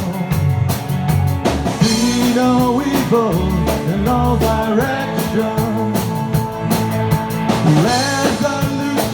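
Rock band music with a steady drum beat and pitched instrument lines over a bass.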